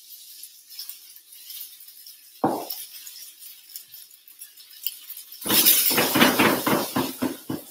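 Kitchenware knocking and clattering: one knock, then about two seconds of rapid clinking and rattling in the second half.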